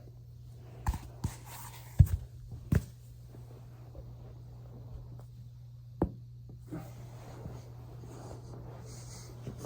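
Joints cracking during foam rolling: a handful of short, sharp pops, several within the first three seconds with the loudest about two seconds in, and one more about six seconds in.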